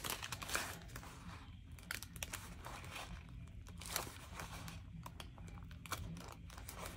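Paper sticker sheets and planner pages rustling and crinkling as they are handled, with irregular soft scrapes and taps.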